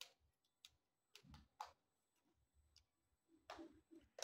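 A handful of faint, scattered clicks and taps from handling a Nikon D5300 camera body and lens while the lens is being fitted to the mount.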